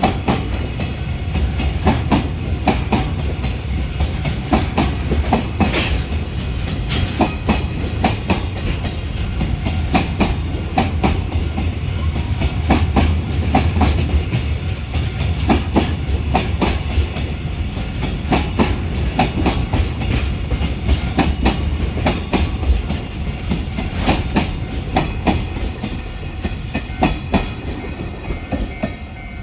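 A container freight train running past, its wagon wheels clattering over the rail joints in a quick, steady run of clicks over a low rumble, easing off near the end.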